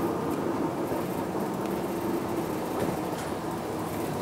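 Hino Blue Ribbon II city bus (QPG-KV234N3) running along the road, heard inside the cabin: a steady mix of engine and drivetrain hum with road noise.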